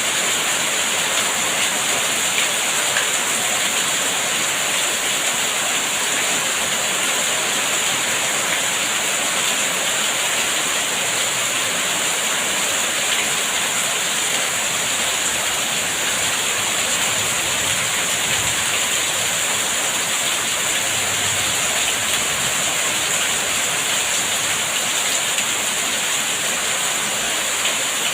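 Steady, heavy rainfall: an even hiss of rain without a break or change.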